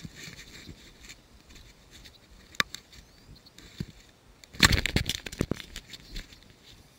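Close handling noise as a caught bass is landed and held: light rustling and scattered clicks, then a dense burst of knocks and crackle near the microphone about four and a half seconds in, the loudest part.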